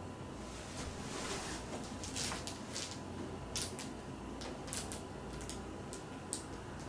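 Siberian husky getting up on a padded quilt mattress, its bedding rustling, then its claws clicking sharply several times on a wooden floor as it steps off, about halfway through.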